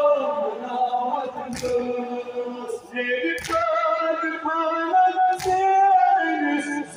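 Men's voices chanting a Kashmiri noha (Muharram mourning lament) together, unaccompanied and held on long notes. A sharp beat cuts in about every two seconds, three times.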